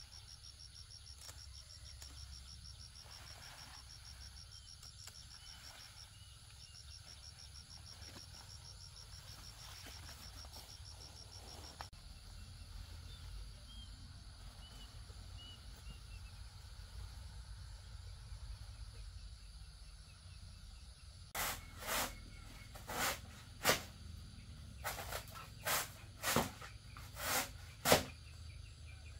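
Insects chirring in a fast, even pulse over a low background rumble. Near the end, a run of about a dozen short swishing strokes, unevenly spaced, much louder than the background.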